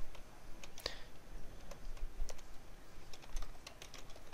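Typing on a computer keyboard: a run of quick keystrokes at an uneven pace, typing out an email address.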